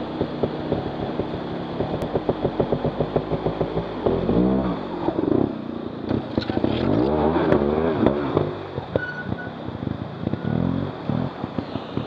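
Trials motorcycle engine blipped and revved in short bursts, the pitch rising and falling, as the bike is worked up a rocky waterfall, over the steady rush of falling water. Throttle bursts come pulsing in the first few seconds, with longer revs in the middle and again near the end.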